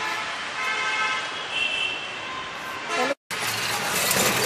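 Street traffic with vehicle horns tooting briefly. After a sudden cut, louder road and engine noise from riding in an open auto-rickshaw through traffic.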